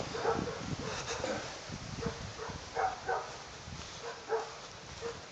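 Dogs barking over and over, short barks coming several times a second.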